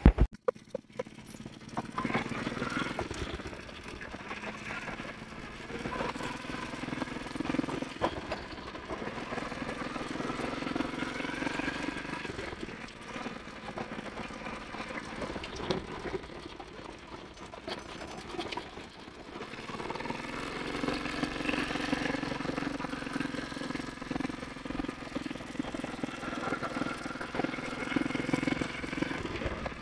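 Motorbike engine running as it is ridden, its pitch rising and falling with the throttle.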